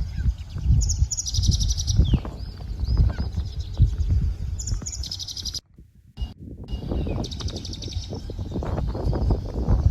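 Small birds chirping in short, rapid high trills, repeated every second or two, over gusty wind buffeting the microphone. The sound drops out briefly a little past halfway.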